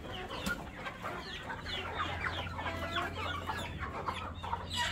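A flock of Sasso chickens clucking and calling, many short overlapping calls at once.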